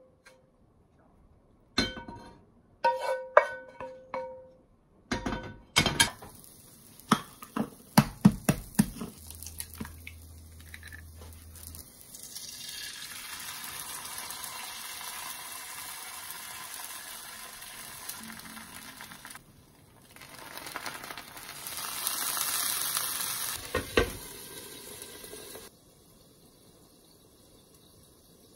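Utensils clink and knock against a steel pan while garlic rice is stirred with a wooden spatula. Then hot oil sizzles as an egg is poured into a frying pan, growing louder near the end.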